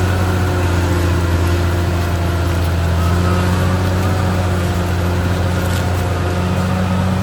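Caterpillar D6R XL bulldozer's diesel engine running steadily with an even low drone.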